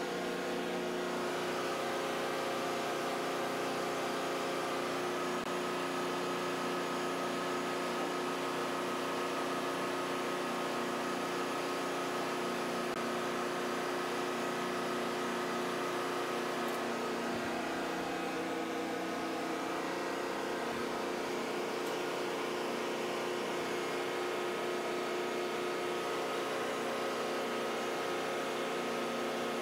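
Steady mechanical hum of ship's engine-room machinery with several steady tones and no change in level, heard from inside a stopped main engine's crankcase.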